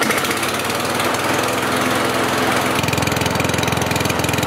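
Kohler Courage XT6 single-cylinder engine on a push lawn mower, running steadily just after being started. Its governed speed is set too low, at about 2,500 RPM, below the 3,000 to 3,200 it should run at.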